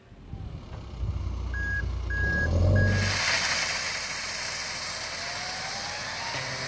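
Dump truck's diesel engine running while its reversing alarm beeps three times. About three seconds in, a load of gravel pours from the tipped bed in a steady rushing hiss, with a faint rising whine under it. Background music comes in near the end.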